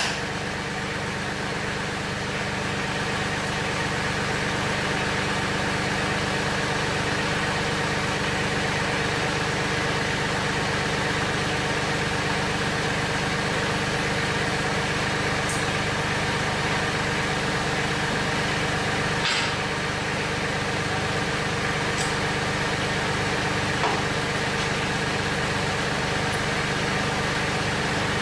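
Mahindra 1526 tractor's diesel engine idling steadily, with a few sharp clicks and knocks spaced through the latter half.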